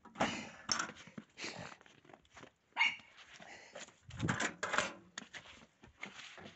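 A dog barking in short, irregular bursts.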